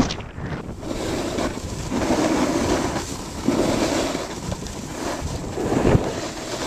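Wind rushing over the microphone while skis scrape and hiss over groomed snow during a downhill run, swelling in waves as turns are made, with a short knock near the end.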